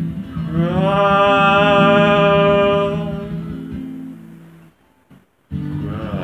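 Strummed steel-string acoustic guitar with a man's voice holding one long note that slides up, holds and fades out. The sound cuts out for about half a second before the strumming starts again near the end.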